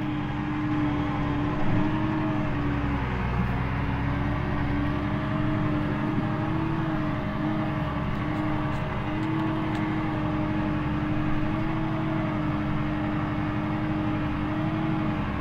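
McCormick G135 Max tractor's diesel engine running steadily under ploughing load, heard from inside the cab: a constant drone whose pitch wavers slightly.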